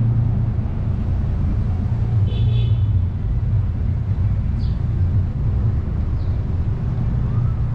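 City street traffic: a steady low rumble of vehicle engines, with a brief high-pitched squeal a little over two seconds in.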